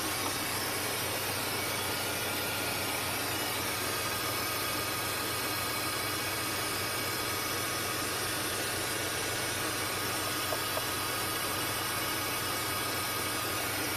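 Engine of a 1995 Chevrolet GMT400 pickup idling steadily with the hood open, an even, unchanging hum.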